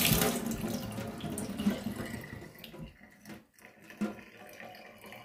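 Kitchen tap water pouring into a metal header tank and splashing into a stainless steel sink, dying away over the first two or three seconds, followed by a couple of light knocks.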